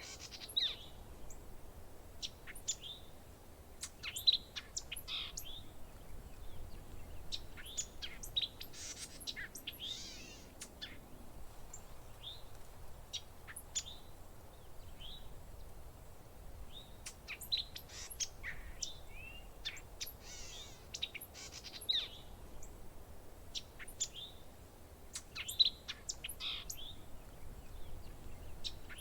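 Birds chirping: short, scattered calls, some sweeping in pitch, in irregular clusters over a faint steady background hum.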